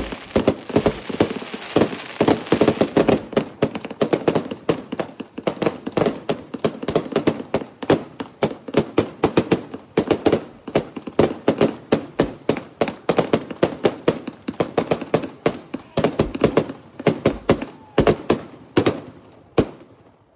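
A string of firecrackers going off in a rapid run of sharp bangs, several a second, that thins to a few scattered last bangs near the end.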